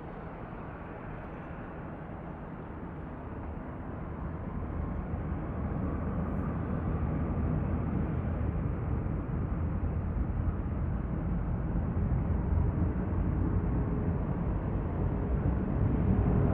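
Jet airliner engine noise, a steady rushing rumble with a faint whine, growing gradually louder from about four seconds in.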